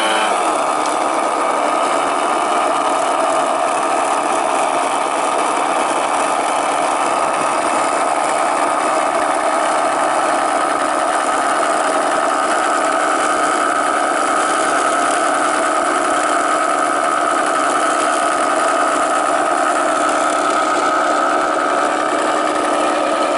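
Four OS 65AX two-stroke glow engines on a large radio-controlled model cargo plane, running together at a steady low throttle.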